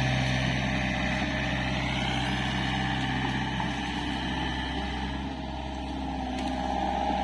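Excavator's engine running steadily, with a higher whine that rises in pitch about two seconds in.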